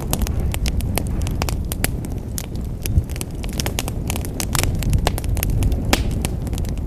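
Wood fire crackling in a fireplace: frequent sharp pops and snaps over a low, steady rumble of the burning fire, with the loudest pop about three seconds in.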